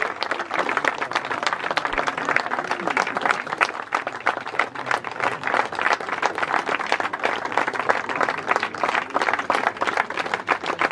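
Audience applauding: many hands clapping together at a steady density.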